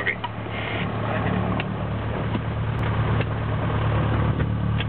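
Light aircraft's piston engine running steadily, a droning hum heard inside the cockpit, with a few light clicks.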